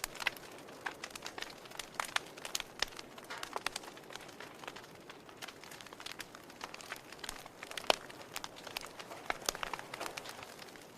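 Wood fire in a fireplace crackling, with irregular sharp pops and snaps over a soft hiss; the loudest pop comes about eight seconds in.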